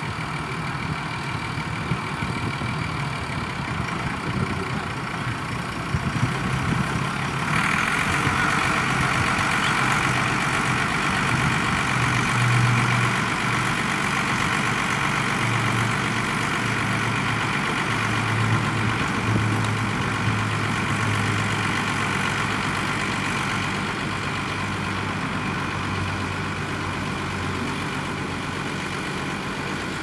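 Massey Ferguson tractor's diesel engine running steadily under load as it pulls a reversible plough through stubble. About a quarter of the way in the sound grows louder and brighter and holds there.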